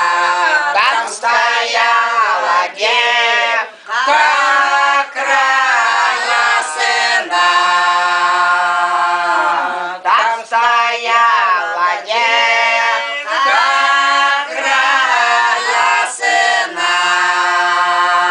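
Elderly Siberian Old Believer women singing an unaccompanied Russian folk song together, the voices holding long, drawn-out notes with short breaks between phrases.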